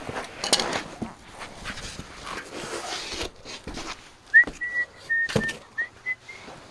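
Scuffing and scraping of a mat being dragged and lifted from under a semi truck, with two sharp knocks. Over the knocks comes a thin, high whistle of several short held notes lasting about two seconds.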